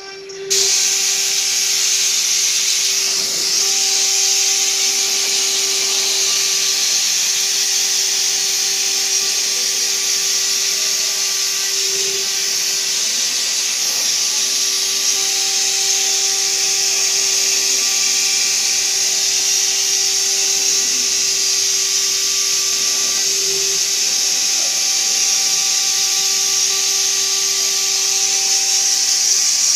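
Omni 6090 CNC router spindle milling 18 mm MDF: a steady pitched hum from the spindle over a loud hiss of the bit cutting the board. It starts abruptly about half a second in and then holds steady.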